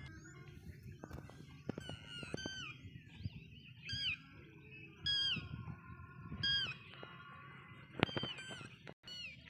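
Repeated short, high-pitched animal calls, each a held note that drops at the end, about one a second, over a low rumble of wind on the microphone, with a few sharp knocks.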